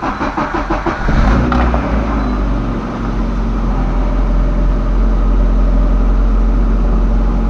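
A VAZ 2110's four-cylinder petrol engine being started: the starter cranks it in a quick even rhythm, it catches about a second in, runs up briefly, then settles into a steady idle.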